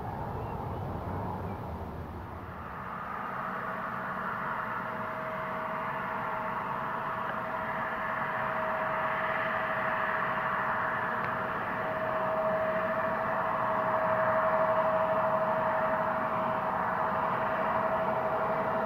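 Embraer regional jet's GE CF34 turbofan engines running: a steady whine over a rush of jet noise that grows slowly louder.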